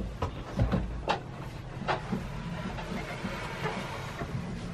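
Irregular light knocks and clicks of footsteps and camera handling while moving about inside a yacht's cabin, over a low steady hum.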